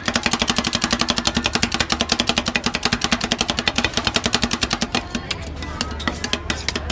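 Metal spatulas chopping rapidly on the steel cold plate of a rolled-ice-cream stand, a fast, even clatter of strikes as the chocolate base is chopped and mixed while it freezes. The strikes thin out about five seconds in.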